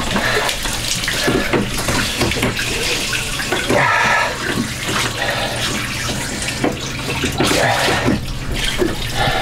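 Seawater gushing and splashing up through an open through-hull fitting below the waterline into the bilge while the speed transducer is worked back into its housing.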